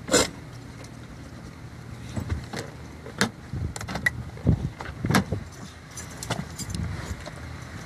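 Car rolling slowly with its engine running low and steady, under a string of sharp clicks and knocks. The loudest knock comes right at the start and the rest are scattered through.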